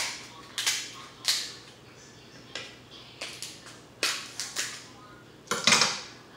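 King crab leg shells being cracked and snapped apart by hand: a string of sharp cracks and crunches at irregular intervals, the loudest near the end.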